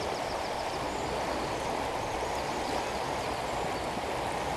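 Steady rush of a fast-flowing river running high after recent rain.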